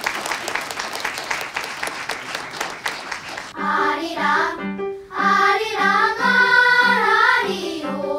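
Audience applauding for about three and a half seconds; the clapping cuts off and a children's choir starts singing.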